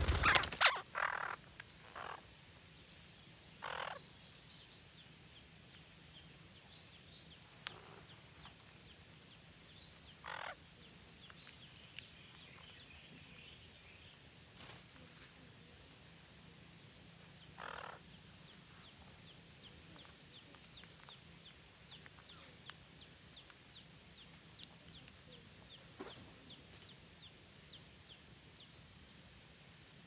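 Red-breasted parakeets giving a handful of short squawks, spaced seconds apart, with a loud close flutter of wings in the first second as one flies past. Thin high chirps and a fast, faint ticking run underneath in the second half.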